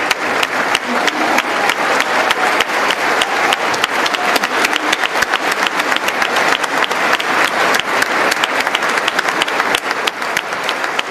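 A large audience applauding at length: dense, steady clapping from many hands.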